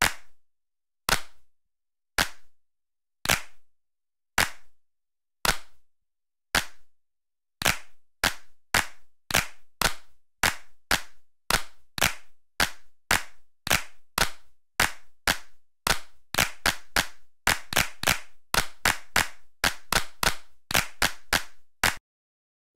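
Sharp clap-like percussive hits in an edited soundtrack. They come about once a second at first, speed up to about two a second around a third of the way in, and reach about three a second in the last quarter.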